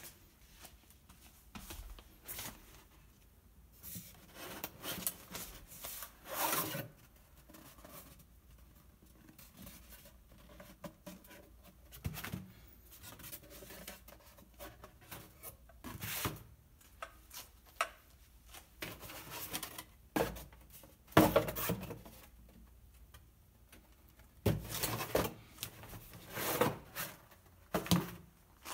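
Corrugated cardboard boxes being handled, rubbing and scraping against each other in short irregular bursts, with a few sharper knocks as pieces are set down.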